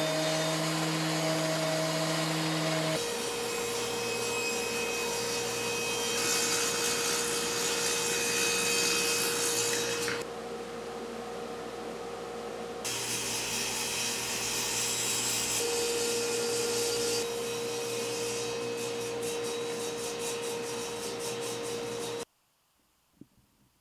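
Woodshop power tools running with dust extraction, heard as short clips that change abruptly every few seconds. It opens with a DeWalt benchtop thickness planer feeding a walnut board, and a steady hum runs under most of it. The noise cuts off suddenly near the end.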